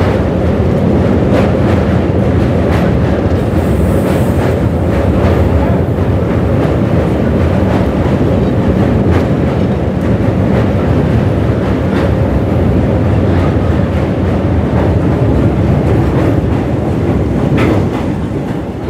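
Passenger train running over a steel truss rail bridge: a loud, steady rumble of wheels on the bridge deck with a fast clickety-clack of rail joints. The rumble eases off about a second before the end as the train comes off the bridge.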